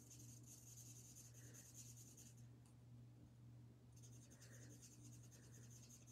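Faint scratching of an alcohol blending marker's tip stroking back and forth over cardstock while colouring, pausing for about a second and a half partway through. A steady low hum runs underneath.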